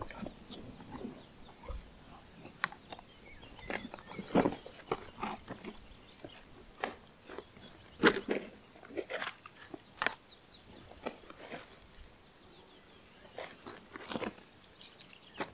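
Picnic food and containers being unpacked from a woven basket and set down on a blanket: irregular rustling of packaging with light taps and knocks.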